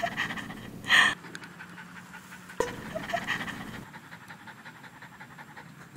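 A dog panting in quick, steady breaths, with a brief loud burst about a second in.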